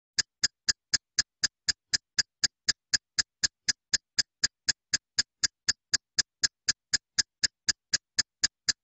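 Even, clock-like ticking, about four crisp ticks a second, with silence between the ticks.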